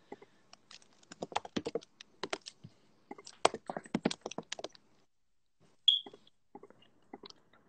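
Light, irregular clicking and tapping like typing on a keyboard, in quick runs through the first five seconds and sparser after. A single brief high chirp comes about six seconds in.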